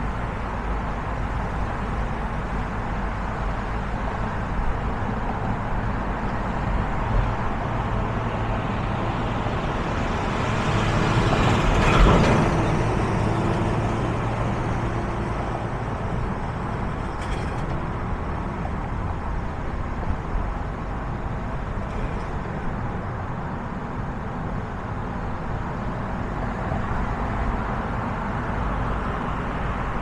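Steady road noise of a car driving on a city street: low engine and tyre rumble. About ten seconds in, another vehicle passing close swells up to a peak and fades away again.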